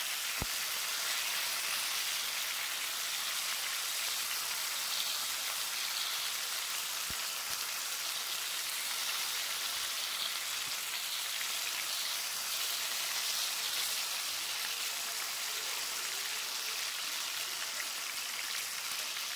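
Marinated chicken pieces sizzling steadily as they shallow-fry in hot oil in a nonstick pan, being browned on the second side. A couple of faint clicks sound near the start and about seven seconds in.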